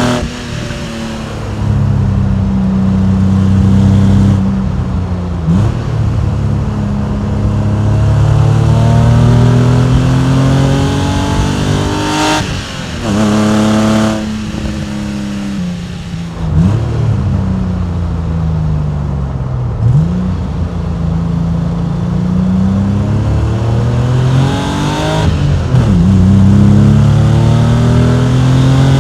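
Porsche 993 Carrera's air-cooled, naturally aspirated flat-six and exhaust under hard driving. The pitch climbs as the revs rise and drops at each of several gear changes through the manual six-speed.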